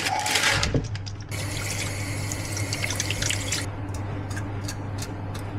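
Kitchen faucet running into a stainless-steel sink for about two seconds, then cutting off, followed by drips and small wet clicks and splashes as hands handle a whole fish in the sink. A short crinkle of paper sounds right at the start, over a steady low hum.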